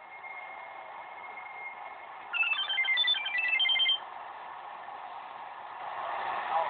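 Mobile phone ringtone: a short melody of quick, high beeping notes lasting under two seconds, the call the phone is signalling.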